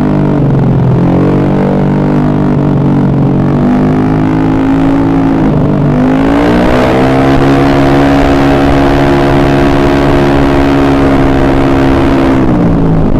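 Single-cylinder four-stroke engine of a rebuilt carbureted Honda BeAT scooter running at raised revs. Its pitch dips and climbs again about a second in and again near six seconds, holds steady, then falls near the end.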